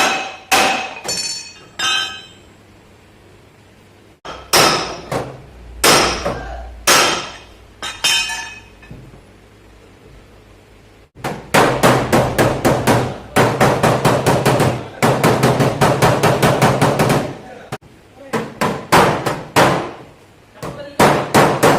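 Hammer striking sheet-metal car body panels in dent repair (panel beating), the metal ringing after each blow. A few separate blows come first, then after a pause a fast run of about five blows a second for several seconds, then more blows near the end.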